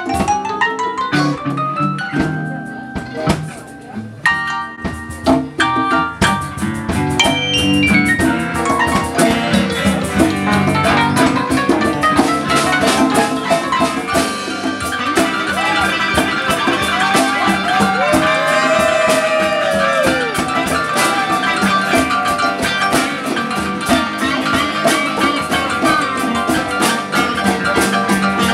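Live band playing an instrumental: electric guitar and keyboard over conga drums and percussion, with notes bending in pitch in the middle.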